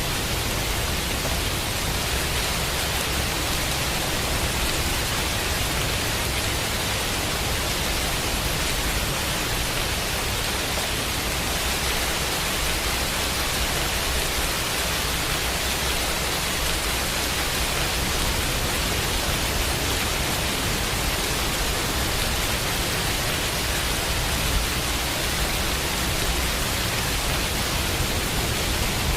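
Steady rain mixed with white noise: an even, unbroken hiss.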